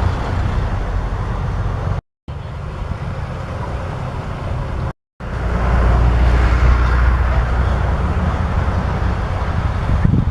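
Yanmar AW82V combine harvester running steadily under load with a low engine drone. The sound breaks off abruptly twice for a moment and is louder after the second break.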